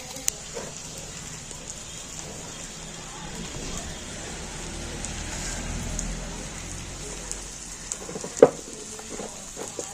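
Prawns or fish frying in hot oil: a steady sizzle with small crackles, and one sharp knock about eight and a half seconds in.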